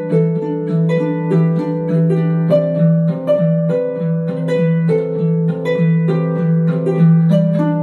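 Background instrumental music of quick plucked-string notes over a steady low note.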